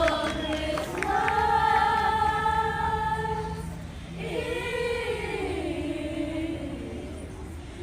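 Middle school chorus singing long held notes in two phrases, with a short break a little before halfway.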